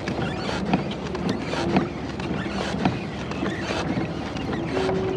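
Wind buffeting an unshielded action-camera microphone and water against a kayak hull, with many scattered small clicks and knocks.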